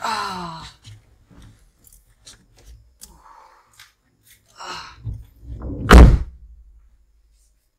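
A falling pitched sweep at the start, then scattered small knocks and clicks, and one heavy thud about six seconds in.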